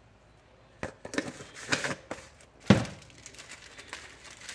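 Rustling and clicks of seasoning containers and packets being handled, starting about a second in, with one louder knock a little under three seconds in.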